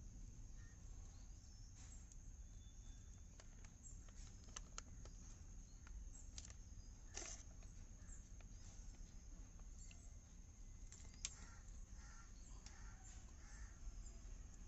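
Near silence: faint outdoor background with a steady high-pitched hum, a few soft clicks and faint bird calls near the end.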